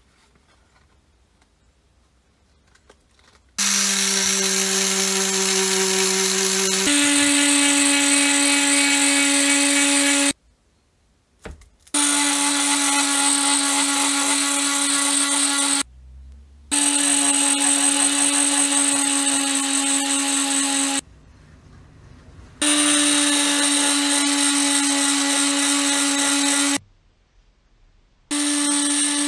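Dexter cordless multi-tool with a delta sanding pad running against a steel hammer head, a steady high buzz with a fixed pitch. It starts about three and a half seconds in, its pitch steps up a few seconds later, and it stops and starts again four times.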